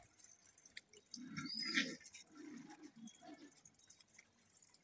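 Faint wet suckling and scuffling from a litter of puppies nursing together, with a short bird chirp about a second and a half in.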